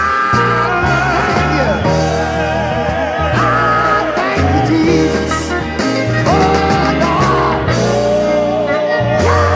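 Gospel song: a lead voice sings long held notes with a wavering vibrato over a band with a strong, steady bass line.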